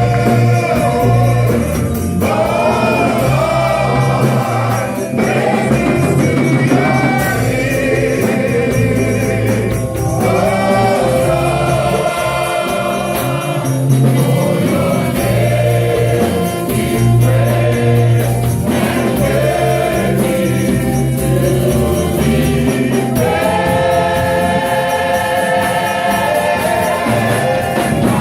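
Gospel worship music: a choir singing with a full band, steady bass and a bright, shimmering top end.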